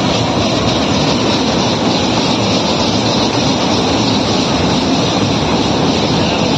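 Spinning fairground ride running at speed: a steady, loud rumble and rattle of its machinery and cars going round.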